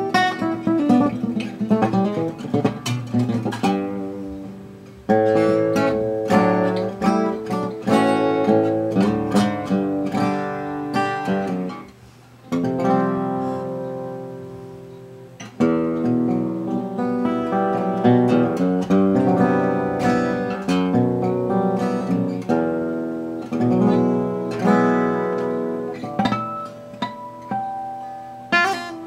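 A 1945/46 Gibson LG-2 small-body flat-top acoustic guitar, recently restored with a neck reset and brace repairs, played with the fingers: picked single notes and chords, with some chords left to ring out and fade.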